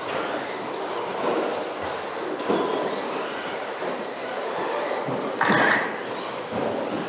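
Several electric 1/10-scale RC stadium trucks racing on an indoor track: motors and gears whining up and down as they accelerate and brake, with the tyres running on the surface. Two sharper knocks stand out, about two and a half and five and a half seconds in, the second the loudest.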